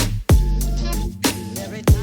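Background music: an electronic track with a heavy bass kick drum on a steady beat and held synth notes.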